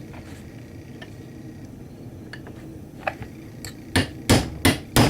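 Hammer tapping a brass punch to drift a Truglo tritium rear sight into the dovetail of a Glock 26 slide: a run of about six sharp metal taps, starting about three seconds in.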